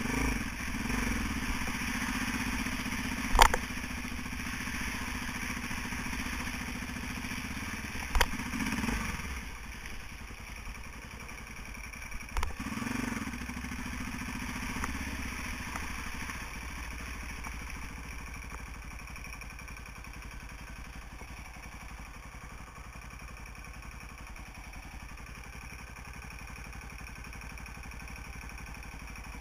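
Off-road trail motorcycle engine running as the bike rides a muddy, rutted track, with the revs rising in surges a few times and then settling to a steadier, quieter run. Three sharp knocks are heard in the first half, the first the loudest.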